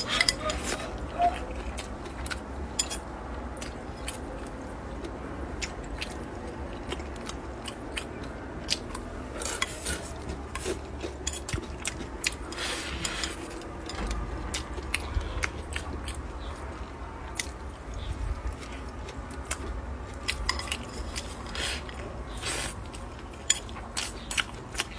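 A person eating close to the microphone: chewing and biting, with frequent small clicks of utensils against a bowl or plate.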